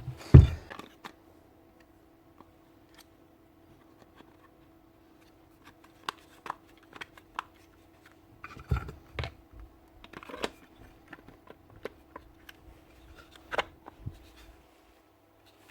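Hand-work on a Bosch GEX150AC sander: scattered sharp clicks and taps as a part is handled and threaded onto the sander's aluminium housing, with one thump just after the start. A faint steady hum runs behind.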